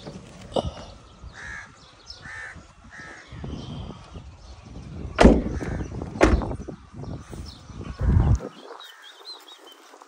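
Crows cawing several times in quick succession early on. Then two sharp thumps about a second apart, about five and six seconds in, from the car's doors being handled and shut.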